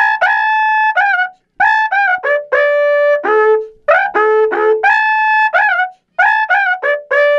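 Wakrapuku, an Andean horn trumpet made of joined cow-horn segments, played into a microphone: held and short notes stepping between a few pitches, in phrases broken by short pauses.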